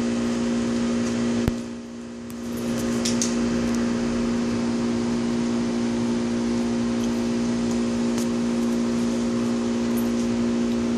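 Steady machine hum, one low droning tone with fainter tones above it, broken by a click about a second and a half in and a brief drop in level just after.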